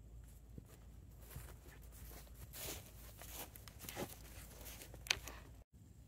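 Faint rustling and scuffing as a rider climbs onto a horse from a wooden box, then soft hoofsteps of the horse walking off on sandy dirt. There is one sharp click about five seconds in, and the sound cuts out briefly near the end.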